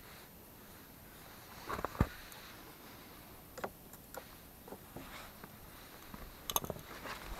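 A few scattered knocks and clicks, the loudest about two seconds in, from someone moving about and handling things at the front of a Jeep, against a faint quiet background. The engine is not running.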